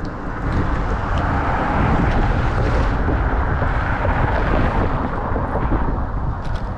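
Strong wind buffeting the microphone: a steady, loud rumbling rush with no pitch to it. A few faint clicks near the end.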